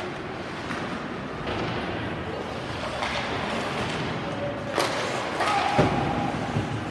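Ice hockey play in a rink: skates and sticks on the ice with voices in the background, a sharp crack about five seconds in, then a heavy thud against the boards a second later.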